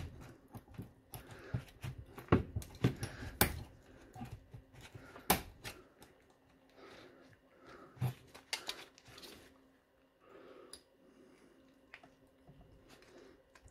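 Sharp metallic clicks and taps as a thin pick pries at the connecting strips on the cells of a DeWalt 18 V lithium-ion battery pack, handled in work gloves. The clicks come thick in the first half, then give way to faint scraping and glove rustle.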